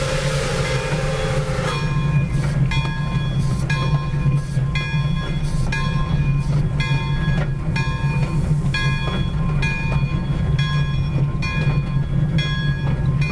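Steam locomotive Pere Marquette 1225, a Lima-built 2-8-4 Berkshire: a whistle blast cuts off suddenly about a second and a half in. Then the locomotive bell rings steadily at about two strokes a second over the low running rumble of the engine.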